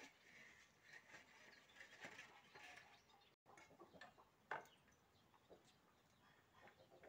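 Near silence: faint outdoor background with a few soft scattered clicks and ticks. The sound drops out completely for an instant about halfway through, and the sharpest click comes about a second after.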